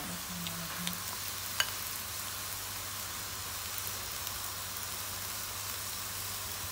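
Carrot halwa sizzling gently in its oil in a metal pan: a steady soft frying hiss with a low hum under it, and one sharp click about a second and a half in as cashews are added.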